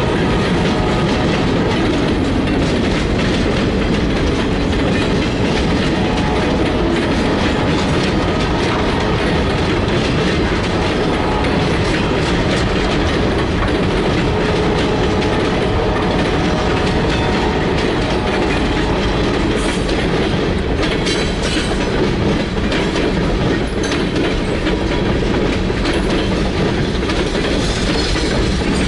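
Freight train rolling past at close range, steel wheels clacking steadily over the rail joints.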